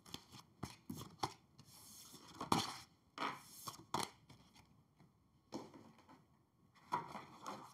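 Tarot cards being gathered up off a tabletop: an irregular string of quick slides, flicks and taps of card on card and card on table, with a short pause partway through.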